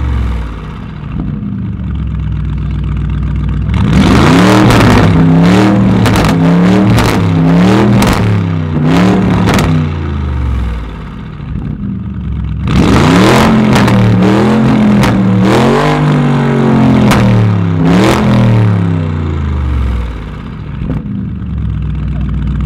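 Lamborghini Urus twin-turbo V8, fitted with a loud Capristo exhaust, revved hard while standing still. It idles, then gives two bursts of rapid repeated revs of several seconds each, settling back to idle between and after them.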